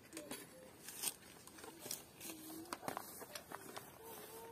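Faint short animal calls, small bending tones repeated every second or so, with scattered light clicks and taps.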